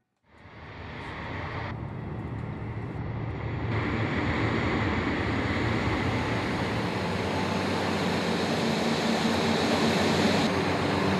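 Aircraft engine running steadily with a low hum, fading in over the first second or so. Its tone shifts abruptly a few times.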